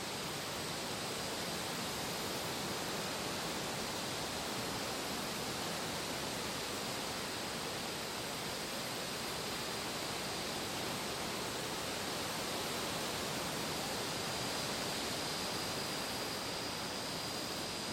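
Steady, even rushing noise of a fall ambience background track, with no distinct events.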